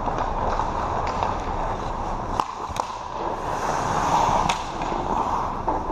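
Ice hockey play: skate blades scraping and carving on the ice, with a few sharp clacks of sticks and puck, about two and a half, three and four and a half seconds in.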